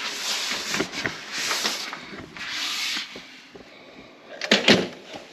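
Rustling and rubbing swishes, several in a row, then a quick cluster of sharp knocks near the end.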